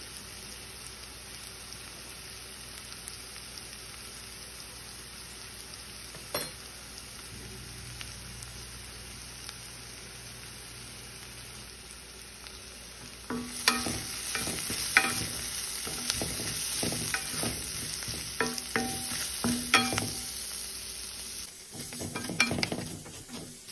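Onions frying in a metal kadai with a steady, quiet sizzle. About thirteen seconds in, a wooden spatula starts stirring them, and repeated scrapes and knocks against the pan ride over the sizzle.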